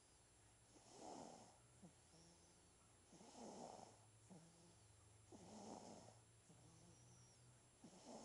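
Nine-day-old newborn baby snoring softly in sleep, four snoring breaths about two seconds apart.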